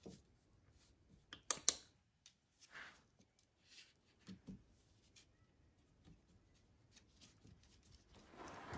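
Faint rustling of paper and light taps from a Shih Tzu puppy shuffling about on a paper sheet, with a sharp pair of clicks about one and a half seconds in. The rustling grows a little near the end.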